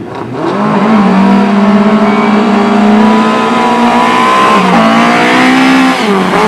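Speedway motorcycle engines running hard at high revs. The pitch builds in the first second, holds steady, then dips briefly twice in the second half as the throttle eases and picks up again.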